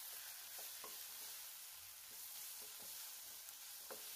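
Sliced carrot and capsicum frying faintly in oil in a nonstick pan while a spatula stirs them, with light, irregular scrapes of the spatula every half second or so over a steady sizzle.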